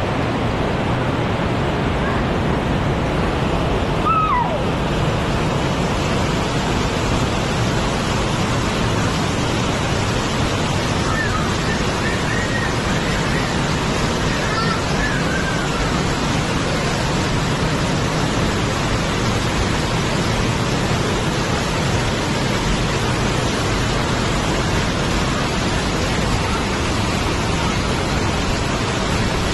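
Waterfall pouring down a rocky gorge: a steady, unbroken rush of falling water.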